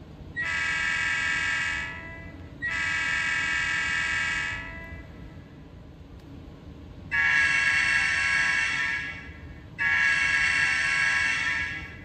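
Diesel locomotive air horn sound played by an ESU LokSound 5 sound decoder through the speaker of an Atlas GP9 model locomotive. It is one of the horn choices set by CV 163, sounded as four blasts of about two seconds each, in two pairs with a pause between, the second pair louder.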